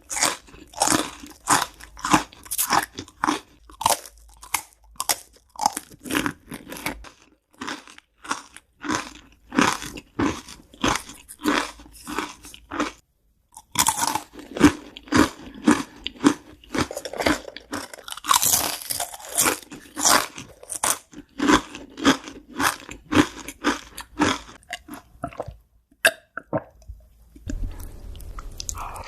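A person chewing crunchy food, a fast run of crisp crunches several times a second, with a short pause about halfway through and softer chewing near the end.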